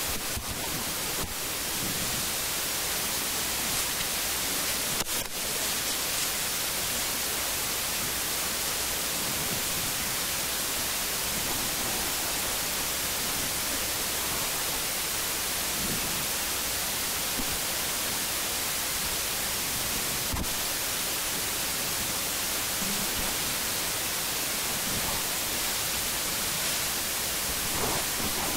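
Steady hiss with a few brief clicks: a couple near the start, a sharper one about five seconds in and another about twenty seconds in.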